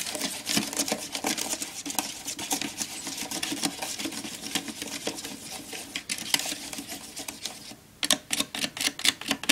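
Small plastic spoon stirring quickly in a plastic tray well, a rapid run of clicking and scraping strokes, with a short lull about eight seconds in before faster stirring resumes. This is powder being mixed into water to make the jelly base, stirred hard so no lumps remain.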